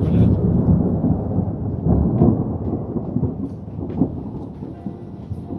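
Deep, rumbling noise that slowly fades, with a few faint ticks.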